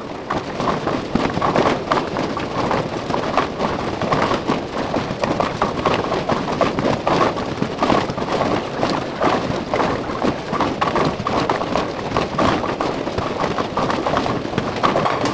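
Bowling alley din: a continuous, dense clatter of pins being struck and balls rolling on many lanes at once.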